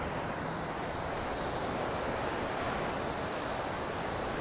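Ocean surf breaking on the beach, a steady rush of waves.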